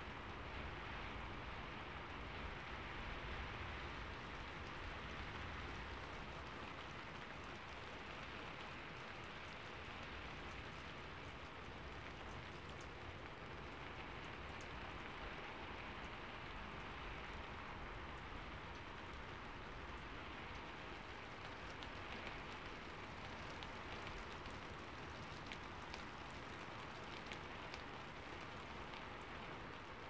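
Steady rain falling: an even hiss with many small, sharp drop ticks scattered through it.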